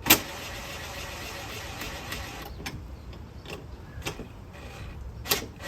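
Tool work on truck intake hardware: a sharp click, then a steady mechanical whir for about two and a half seconds, then a few separate metallic clicks.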